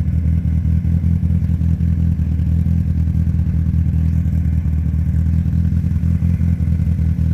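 Beach buggy engine idling steadily, a low, even rumble with a fast flutter.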